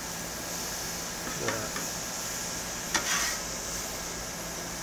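Banana slices, bacon and French toast sizzling on a flat-top griddle, with a steady hiss, while a metal spatula scrapes across the cooktop twice, about one and a half and three seconds in.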